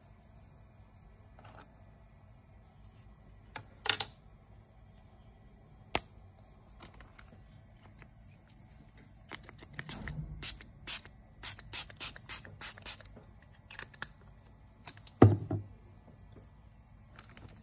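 Pump-spray bottle of screen-cleaning liquid spritzed at a laptop screen: a couple of single sprays, then a quick run of a dozen or so short spritzes. A single loud thump comes near the end.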